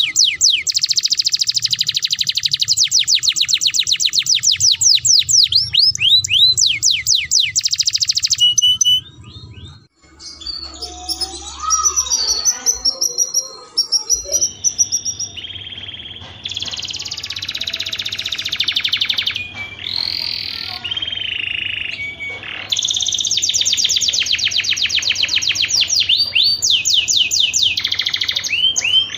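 Canary singing in breeding condition: long, very rapid trills of repeated high notes, a brief break about nine seconds in, then varied phrases and more fast trills.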